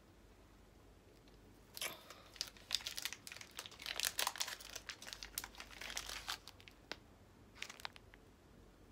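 Plastic wrapper of a Corny Big chocolate cereal bar being torn open and crinkled by hand: a run of crackling that starts about two seconds in and lasts around four seconds, with a few last crackles near the end.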